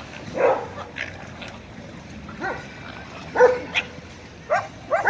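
A dog at play giving short, high yips and barks, one or two at a time, coming more often near the end.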